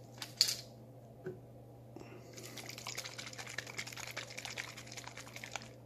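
A few light clicks as a water-hardness test tablet goes from its foil blister pack into a small plastic bottle of water. From about two seconds in, the bottle is shaken to dissolve the tablet, the water sloshing steadily for about four seconds.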